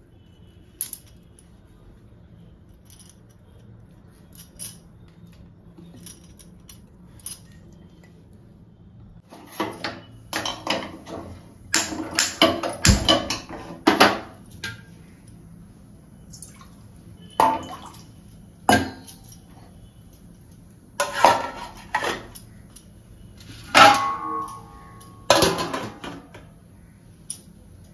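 Stainless steel cookware clinking and clanking: a perforated steel steamer plate, a steel kadai and its lid knocked together as they are handled and set on the stove. A few light ticks come first, then from about a third of the way in a run of loud clangs, one of which rings briefly.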